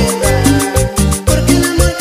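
Upbeat Latin dance music with a prominent bass line and steady, evenly spaced percussion.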